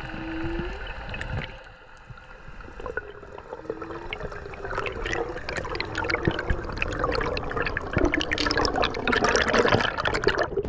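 Underwater water noise picked up by a spearfisher's camera: a steady hum for the first couple of seconds, then bubbling, crackling water that grows louder through the second half.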